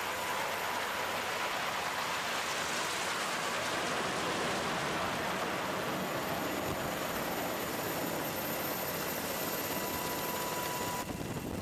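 Aircraft engine noise: a steady rushing sound with no distinct beat, dropping a little shortly before the end.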